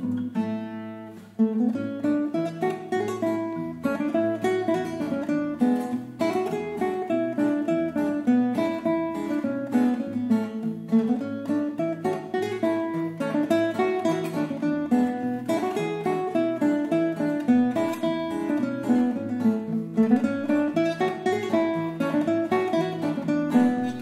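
Duet of a classical guitar and an acoustic guitar playing a lively melody in quick plucked notes over a moving bass line. There is a brief pause about a second in before both guitars come back in strongly.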